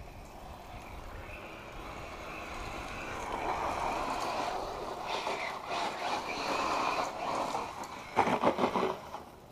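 1/8-scale electric RC car with a Castle Sidewinder 2200 kV brushless motor running fast on gravel: a high motor whine over tyre and gravel noise that grows louder as the car speeds up. About eight seconds in, a loud burst of rapid knocks.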